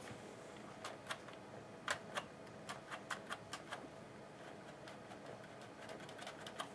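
Irregular small clicks and taps from parts of a hedge trimmer's handle being handled and fitted during reassembly, most of them in the first four seconds and a few fainter ones near the end.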